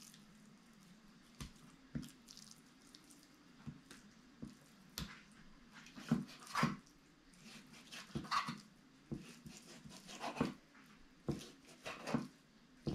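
Knife slicing raw beef on a cutting board: irregular knocks and taps as the blade goes through the meat and hits the board, with a faint steady hum underneath.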